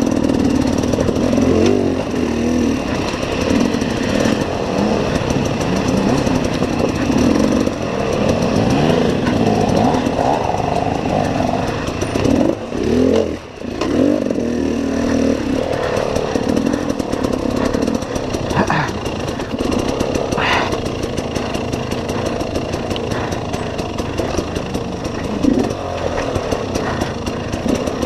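KTM enduro motorcycle engine revving up and down as the bike picks its way up a rocky trail, heard close up from the bike itself. About halfway through it briefly drops off almost to nothing, then picks up again.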